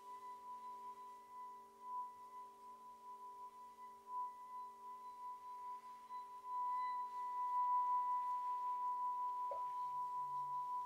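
Small handheld metal singing bowl rimmed with a wooden mallet, singing a steady high tone that swells and wavers slowly, over the lower hum of other bowls still ringing. About nine and a half seconds in, a larger bowl on the floor is struck, adding a deep pulsing tone.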